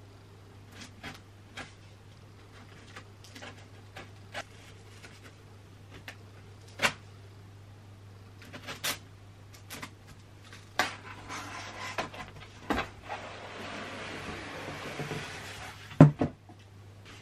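Cardboard boxes being handled: scattered taps and knocks on the brown shipping carton, then a long scraping rustle of cardboard sliding on cardboard as the white 21.5-inch iMac box is drawn out of it. It ends in one loud thump about sixteen seconds in, as the box comes free and is set down.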